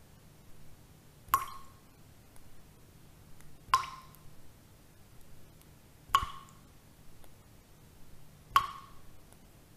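A sharp plop with a short ring repeats at an even pace, about every two and a half seconds, four times, over a faint steady low hum.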